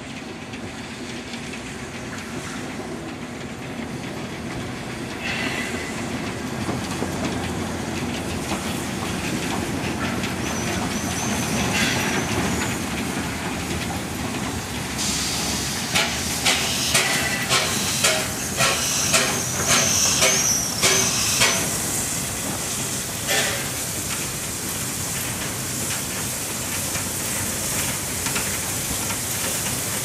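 Double-headed steam tram locomotives approaching and passing, steam hissing and the train running louder as it nears. As it passes, a run of sharp rhythmic clacks comes about two a second, with short high squeals twice.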